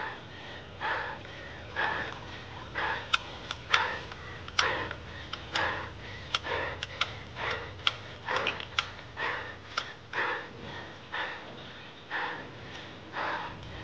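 Hard, rhythmic breathing of a cyclist straining up a very steep climb, about one breath a second. Sharp ticks come in among the breaths in the middle stretch, over a steady low hum.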